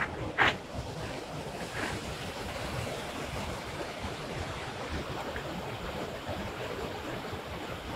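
Steady rushing of a garden waterfall, with wind buffeting the microphone. A brief sharp crackle comes about half a second in.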